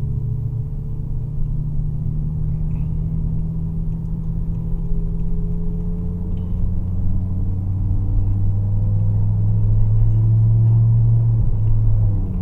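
BMW M5 E60's V10 engine running at low revs under light, steady load, heard from the rear of the car; the note grows gradually louder and drops off abruptly near the end.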